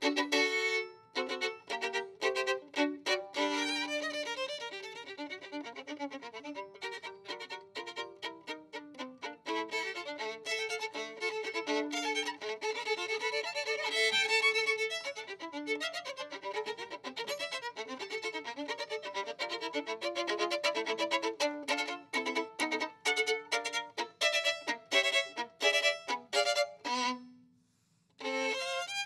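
Solo violin played live in fast runs of short bowed notes. Near the end a held low note fades out, there is about a second of silence, then the playing starts again.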